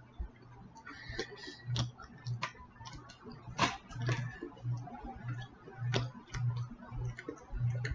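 A person chewing a mouthful of sausage and cheese biscuit, about two chews a second, with wet mouth clicks and smacks.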